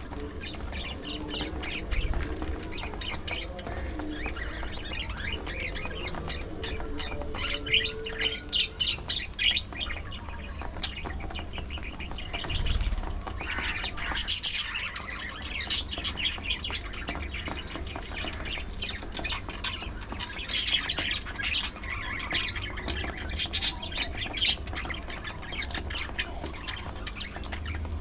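Flock of budgerigars chirping and chattering with frequent short squawks. The calls come in busier clusters about halfway through and again near the end, over a low background rumble.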